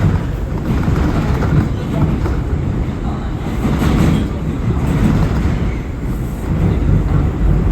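R179 subway train running along the track, heard from inside the car: a steady, loud rumble of wheels on rail with a few brief louder swells.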